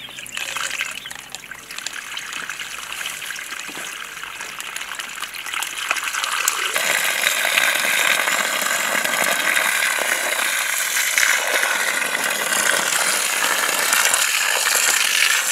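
Water gushing from an irrigation pipe and hose as its valve is opened: a steady rushing splash that grows louder, stepping up about seven seconds in.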